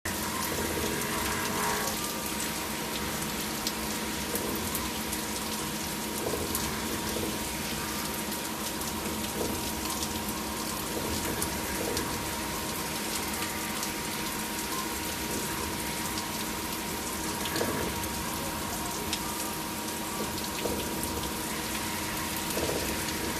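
5-axis CNC milling machine cutting under flood coolant: a steady hiss of coolant spraying and splashing over the workpiece and rotary table, with a steady high whine from the machine and a few faint ticks.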